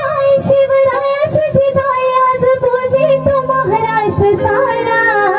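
A woman singing a Marathi devotional song (stavan) into a microphone through a stage sound system, in long, wavering held notes. Beneath the voice are steady instrumental tones and quick percussion strikes.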